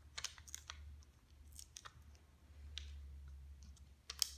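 Small plastic jewel stickers being handled, peeled from their sheet and pressed onto a paper puppet: scattered light clicks and crinkles, a few near the start and a cluster near the end, over a faint low hum.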